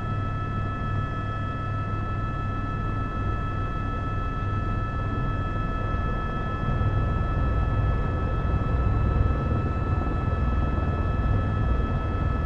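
Helicopter engine and rotor drone: a low, wavering rumble with a steady high whine above it. It gets a little louder about two-thirds of the way through.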